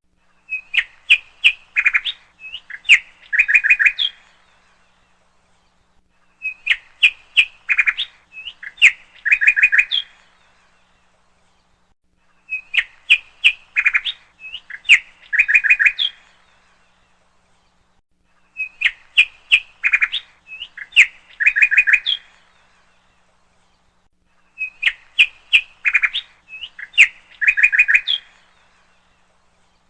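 Bird chirping: a quick phrase of sharp chirps ending in a short trill, about three and a half seconds long, repeated identically about every six seconds, five times over, as a looped sound track.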